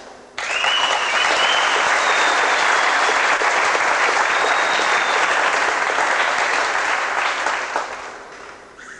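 Audience applauding. The applause breaks out suddenly about half a second in, holds steady and dies away near the end.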